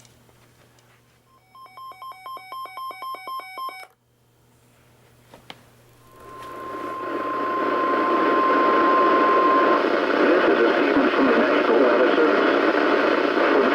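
Weather radio receiver's electronic alert beeping rapidly for about two seconds. After a click, loud radio static rises and carries a steady single tone for about four seconds, the 1050 Hz Warning Alarm Tone that precedes a NOAA Weather Radio warning. The static continues after the tone stops.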